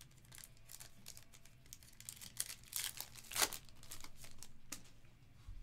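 Foil wrapper of a Panini Flux basketball card pack crinkling and tearing as it is ripped open. It is a run of sharp crackles that grows busier partway through, with the loudest crackle a little past halfway.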